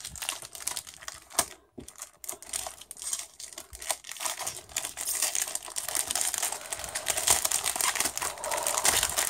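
Crinkly packaging being handled and worked open by hand: scattered crackles at first, turning into steady crinkling from about halfway through.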